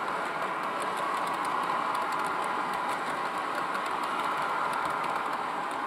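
Model freight train rolling past on the layout track: a steady rolling noise of the cars' wheels on the rails, with light irregular clicks.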